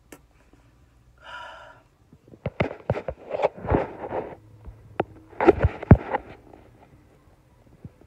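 A short puff of breath about a second in, then a run of sharp knocks, taps and rubbing as the recording phone is handled and repositioned, loudest near the end.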